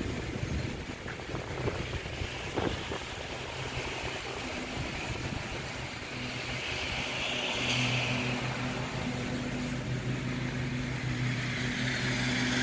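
A steady engine hum that grows louder about halfway through, over a light hiss.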